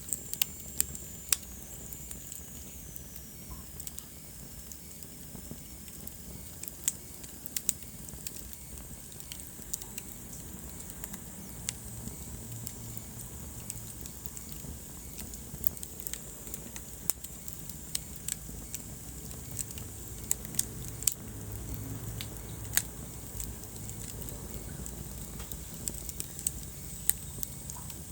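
Wood fire in a fireplace crackling, with sharp irregular snaps and pops over a low steady rumble of flames. A faint high whistle falls in pitch during the first few seconds.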